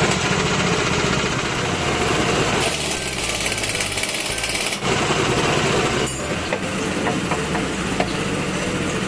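Impact wrench hammering in long runs, a rapid pulsing rattle that changes pitch about two and a half seconds in and again near the five-second mark.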